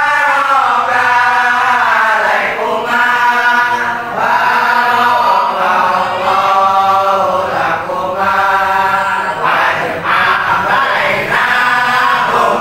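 A group of young male voices chanting a religious song in unison, in long drawn-out, wavering phrases.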